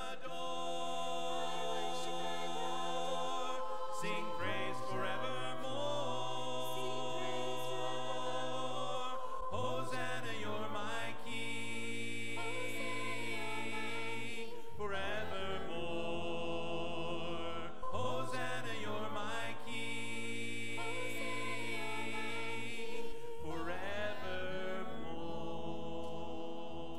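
A cappella choral singing: many voices hold slow, sustained hymn chords without instruments, moving to a new chord every few seconds.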